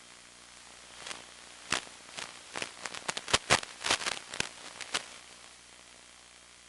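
Irregular sharp crackles and pops, about a dozen over four seconds and clustered near the middle, over a steady hiss and faint hum: static breaking up on an analog FPV video link's audio.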